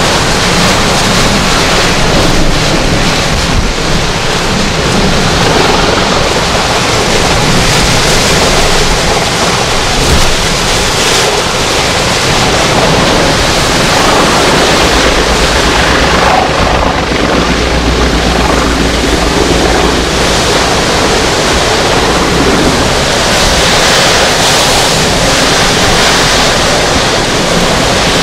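Hurricane wind and driving rain blowing steadily, with gusts buffeting the microphone.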